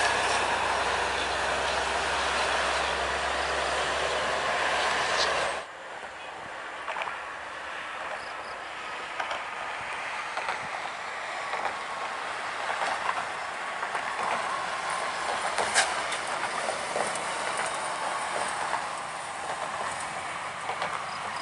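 Coach buses passing on a highway: engine and tyre noise. The sound is loud for about the first five and a half seconds, then cuts suddenly to quieter road noise as another bus goes by.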